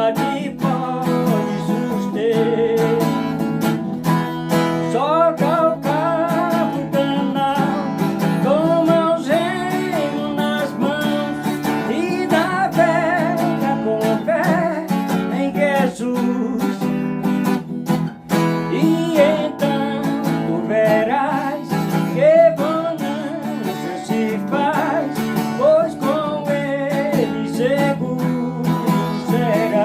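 A Portuguese-language Christian hymn sung over strummed acoustic guitar, the voice gliding between held notes.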